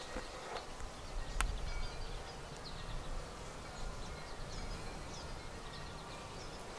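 Honeybees buzzing around an open hive, a steady low hum, with one sharp click about a second and a half in.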